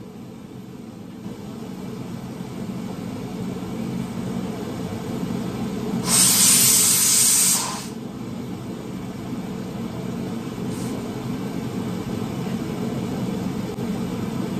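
Pressure cooker on the hob letting off steam in one loud hiss about six seconds in, lasting nearly two seconds, over a steady low rumble that slowly grows louder.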